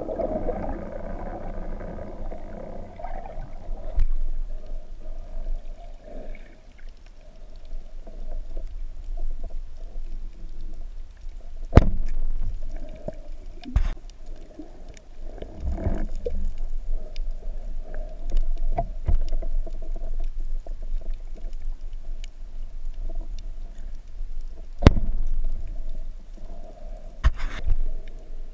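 Underwater sound picked up by a submerged camera in shallow water: a steady low rumble of moving water, with a rush of bubbles in the first few seconds. Several sharp clicks or knocks stand out, spread out through the rest.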